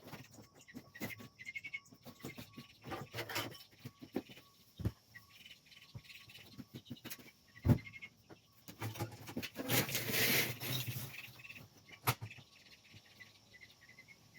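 Scattered knocks and clatter of equipment being handled and moved, with short bird chirps and a faint steady high tone behind them. A louder thump comes about eight seconds in, and a rush of noise around ten seconds.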